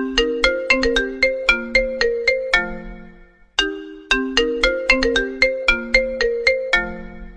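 iPhone ringtone melody: a quick run of short ringing notes over a lower line. The phrase plays twice, each time ending on a held low note.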